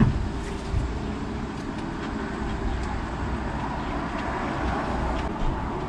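Steady outdoor background noise, a low rumble with an even hiss above it, broken by a few faint clicks.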